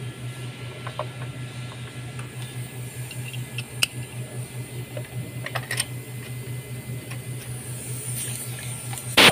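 Scattered light metallic clicks of a spark plug socket and extension being handled and fitted into a spark plug well, over a steady low hum, with a short loud burst of noise right at the end.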